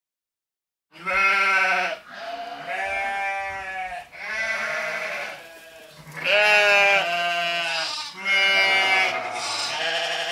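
Farm animals bleating: a run of long, wavering bleats one after another, starting about a second in.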